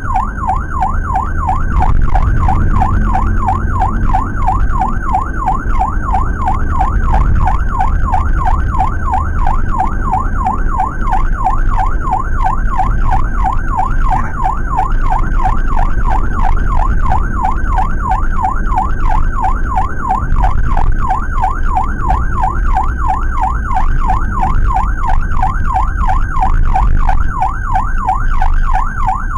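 Electronic emergency siren in a fast yelp, sweeping up and down about three to four times a second without a break, heard from inside a Suzuki APV ambulance's cabin over the low rumble of its engine and tyres.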